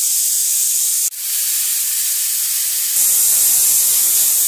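Pressure cooker's weight valve venting steam in a loud, steady hiss: the 'whistle' that shows the cooker has reached full pressure. The hiss cuts out for an instant about a second in, then comes back and grows louder from about three seconds in.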